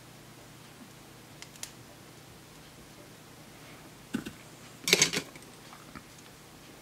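Bench handling noises: a few faint clicks, then a short, sharp clatter about four to five seconds in as the soldering iron is set aside and the LED board is handled.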